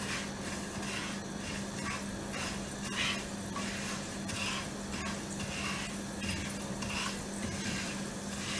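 Fenugreek seeds sizzling gently in hot mustard oil in a non-stick frying pan, with a wooden spatula stirring and scraping them across the pan in repeated strokes. A steady low hum runs underneath.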